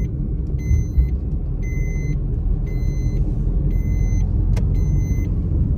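Car driving, with a steady low engine and road rumble heard from inside the cabin. An electronic beep repeats about once a second, and there is a single click about halfway through.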